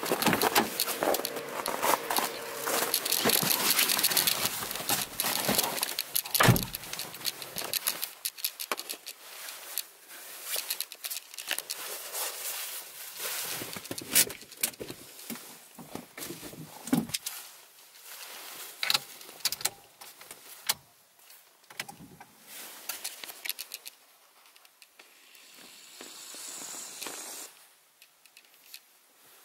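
Someone getting into a Renault Clio 3: the driver's door opening with handling and rustling, a heavy thump about six and a half seconds in as the door shuts, then keys jangling, clicks and rustling inside the cabin, growing quieter near the end. The engine is not running.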